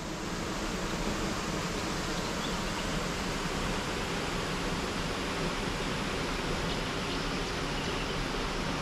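Small waterfall cascading into a gorge pool: a steady, even rush of falling water.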